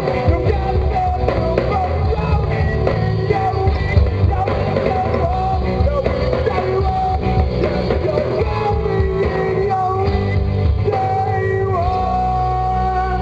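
Live punk-rock band playing with singing, drums and electric guitar. Near the end the drumming stops and a low, steady held tone is left.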